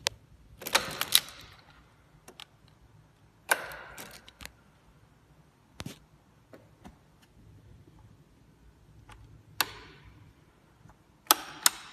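Scattered sharp clicks and knocks of plastic being handled and switches being pressed on an electric scooter's handlebar controls, in about five separate clusters with short rattly tails. No motor is heard.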